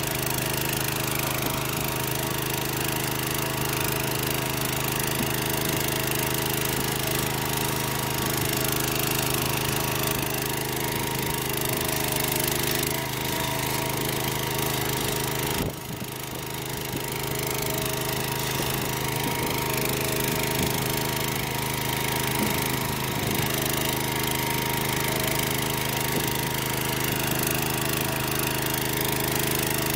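Small engine of a Casorzo two-wheel tractor running steadily while it pulls a rotating disc plow through the soil, with a brief dip in level about halfway through.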